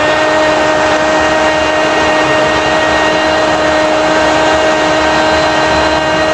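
Brazilian radio football commentator's long goal cry, a 'gooool' held as one unbroken note at a steady pitch for several seconds, over crowd noise.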